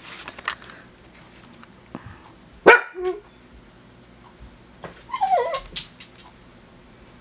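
A dachshund barks once sharply, with a shorter bark right after, then gives a wavering, falling whine a couple of seconds later.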